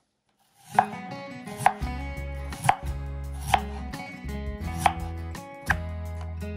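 Sharp knocks about once a second, like a knife chopping on a cutting board, over steady low held tones.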